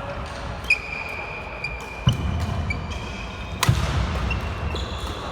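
Badminton rally: three sharp racket hits on the shuttlecock, about a second and a half apart, with shoes squeaking on the court floor between them.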